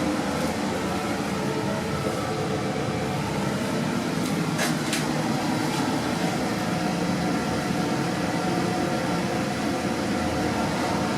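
Service lift car travelling upward in its shaft: a steady rumble and hum of the running lift, with a couple of faint clicks about halfway through.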